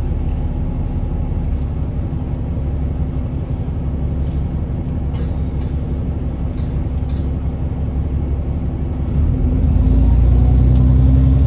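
A London double-deck bus's diesel engine idles with a steady low rumble and a few faint, scattered clicks. About nine seconds in it pulls away, and the engine note rises and grows louder as the bus accelerates.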